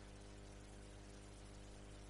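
Near silence: a faint steady hum and hiss of the recording in a pause between sentences.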